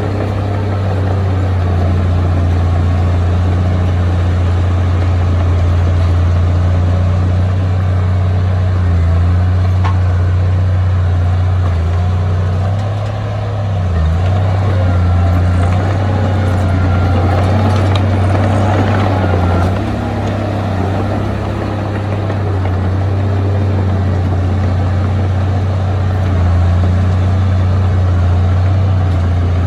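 Heavy diesel engine of earthmoving machinery running steadily with a strong low drone. The drone dips briefly twice, and there is a rougher grinding noise in the middle.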